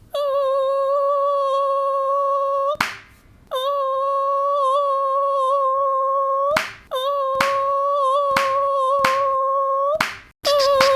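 Cartoon mosquito whine, a steady high buzz, broken by six sharp hand claps swatting at it. The whine stops after the first clap and again after the last, then starts up again each time.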